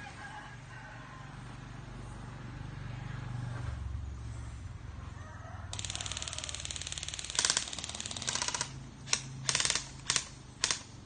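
Airsoft BB guns firing on full auto: a long run of rapid clicking shots starting about six seconds in, then four short bursts near the end.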